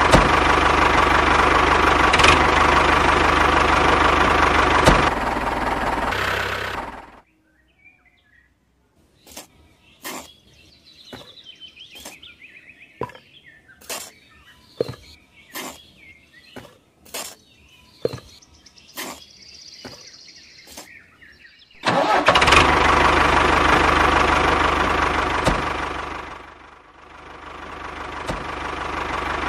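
Tractor engine running steadily, cutting off about seven seconds in. Then a string of light taps and scrapes as a small spade scoops sand into a toy trailer, before the engine sound comes back about 22 seconds in, dips away near 27 seconds and builds up again.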